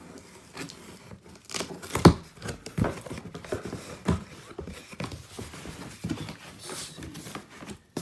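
Cardboard shipping box being opened by hand, with scraping and rustling and several sharp knocks, the loudest about two seconds in.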